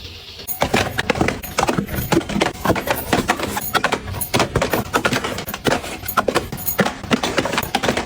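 Small items being handled and set down: a busy, irregular run of quick clicks, taps and knocks that starts about half a second in.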